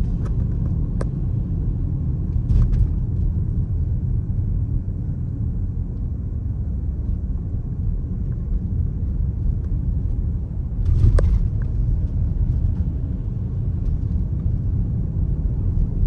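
Steady low road rumble inside a 2018 Dodge Durango's cabin as it drives through snow: engine and tyre noise. A brief knock about eleven seconds in.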